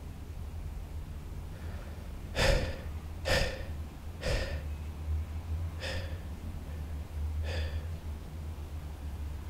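A man gasping for breath: five sharp breaths a second or so apart, the first three loudest and the last two fainter, the panicked breathing of someone jolted awake from a nightmare. A steady low hum sits underneath.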